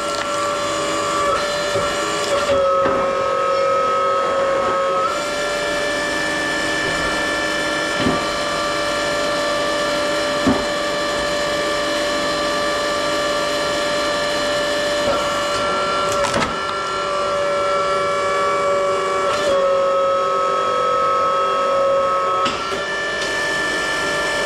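Electric motor and hydraulic pump of a homemade log splitter running with a steady whine while the ram drives a log through the wedge. The whine's pitch drops and recovers a few times, and a few sharp knocks are heard.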